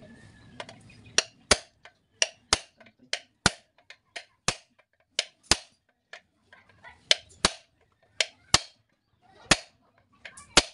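A hand hammer striking a steel punch to set the rivets that fix a new lining to a truck brake shoe: a series of sharp metal-on-metal blows, many in quick pairs. Improvised riveting, with a home-made block holding the rivet head in place of a rivet press.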